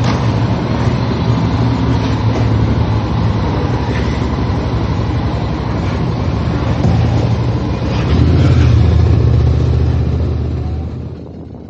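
Motor vehicle engine running steadily, rising in revs about eight seconds in, then falling away near the end.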